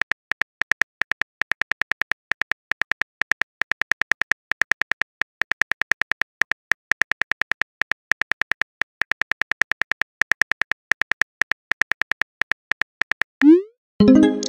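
Simulated phone keyboard clicks from a texting-story app, tapping out a text message letter by letter at several clicks a second. About a second before the end a short rising swoosh marks the message being sent, followed by a plucked-sounding tone.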